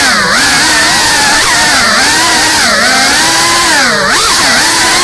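GEPRC Cinelog 35 cinewhoop's brushless motors and ducted propellers whining at high speed. The pitch dips and climbs back several times as the throttle is cut and punched through flips and rolls.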